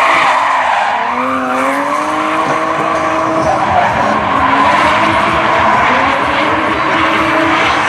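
BMW E46 coupe drifting: its engine revs climb about a second in and then hold high, over the steady screech of its tyres sliding sideways on asphalt.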